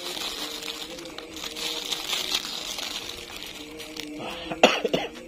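Clear plastic bag of kerupuk crackers crinkling as the crackers are crushed and crumbled by hand, with a few loud, sharp crackles near the end. A faint steady hum runs underneath.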